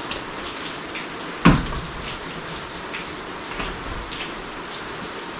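Hand-pumped hydraulic engine hoist lifting an engine, with a small click every second or so from the pump strokes and one loud clunk about a second and a half in, over a steady hiss.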